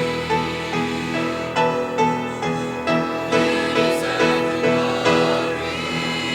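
Slow instrumental keyboard music: held chords with notes struck about twice a second.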